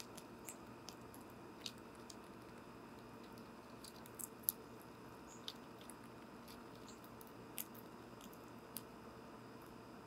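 Squirrel eating seeds from a bird feeder, close to the microphone: scattered sharp crunches and clicks as it bites into the seeds, the loudest about four and a half seconds in, over a faint steady hiss.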